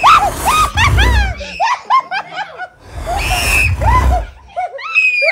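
A child's high-pitched laughter in quick rising-and-falling bursts, coming in two or three bouts, with a low rumble under the louder stretches.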